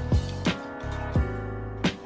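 Background music with a beat: deep drum hits that drop in pitch, over held tones.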